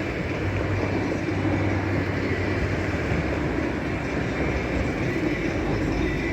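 Steady running rumble of a train, with a low hum and a faint high whine held throughout.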